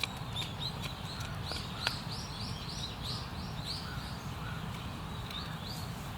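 A small bird calling: a quick series of short, high chirps, about three a second, for a couple of seconds, with a few more near the end. Under it a steady low rumble and a couple of sharp clicks.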